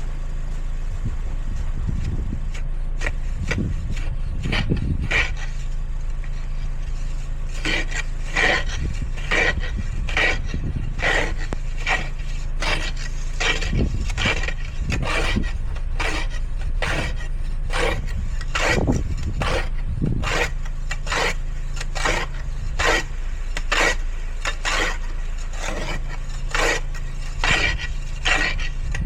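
Rhythmic scraping strokes, about two a second, over the steady hum of an idling car engine.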